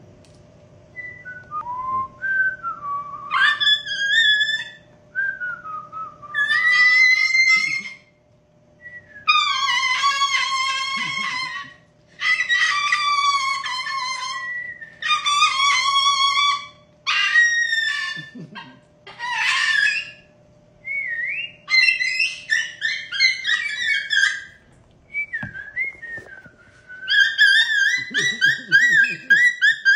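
Cockatoo whistling in repeated phrases of gliding, rising and falling notes as it imitates a man's whistle. A fast warbling trill comes near the end.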